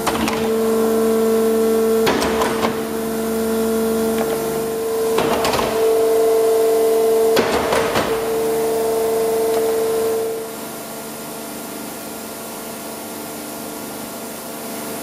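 Eaton Leonard VB75 CNC tube bender's hydraulic system running with a steady whine, broken four times by short hissing clunks as the machine's hydraulic actions cycle. About ten seconds in, the strongest whine stops and the machine settles to a quieter hum.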